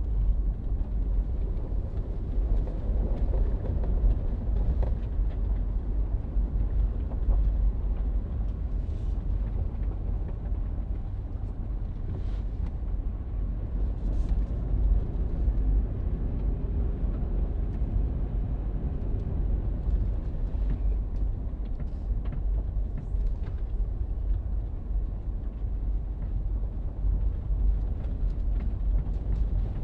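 Toyota vehicle driving on a gravel forest road, heard from inside the cab: a steady low rumble of engine and tyres on the unpaved surface, with a few faint ticks now and then.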